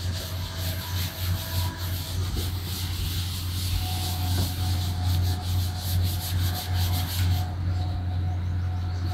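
Cloth rubbed back and forth over a chalkboard in quick repeated strokes, wiping off chalk writing.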